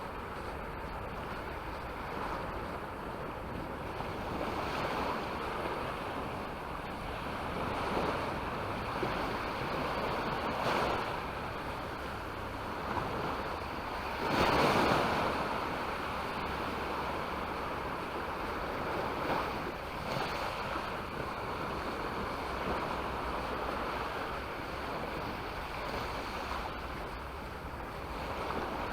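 Mediterranean sea waves washing onto the shore, swelling every few seconds, with the loudest wave breaking about halfway through.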